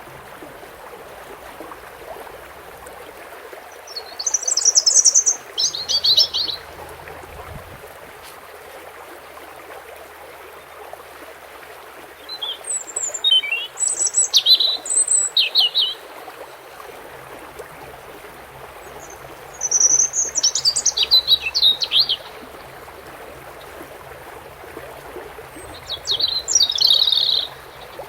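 European goldfinch singing in four short bursts of rapid, high twittering, over a steady wash of running water.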